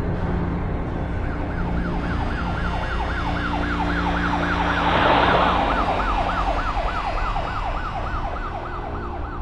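Police car siren in fast yelp mode, warbling up and down about four times a second. It starts about a second in and runs on, with a rushing noise swelling over it about halfway through.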